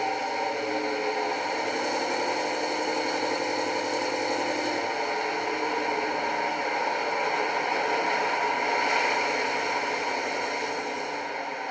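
Factory-fitted DCC sound decoder in an Accurascale Class 55 Deltic model, playing the Napier Deltic engine sound at a steady idle through the model's small speaker, with little bass.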